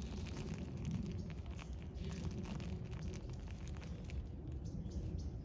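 Faint scattered clicks of a peahen's beak pecking food bits off a concrete sidewalk, over steady low background noise.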